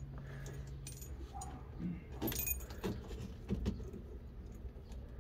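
Keys jangling and clicking at a pickup's dashboard ignition switch as the key is worked in with one hand. There are a few light clicks and rattles between about two and four seconds in.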